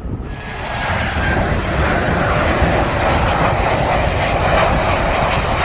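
American Airlines Boeing 737-800's CFM56 turbofan engines on final approach with gear down, a loud steady jet roar that swells over the first second and then holds.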